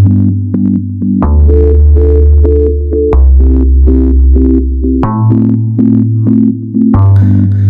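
Background music: an electronic track with repeated synthesizer chords pulsing over a deep bass line that shifts every couple of seconds.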